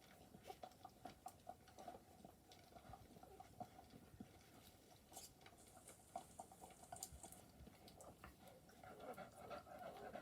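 Newborn wire-haired dachshund puppies faintly squeaking, with soft clicks and rustling. Near the end one starts a wavering whimper.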